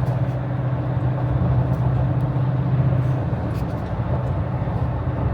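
Steady road and engine drone inside a vehicle cabin at highway speed, a constant low hum over tyre and wind noise.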